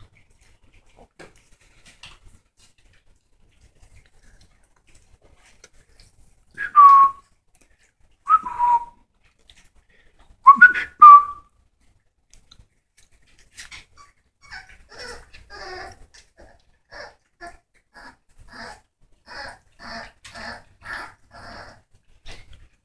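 Puppies whining: three loud, high whines that each fall in pitch, the third a double one. For the last several seconds, a run of short rough noises about twice a second from the puppies chewing on raw chicken drumsticks.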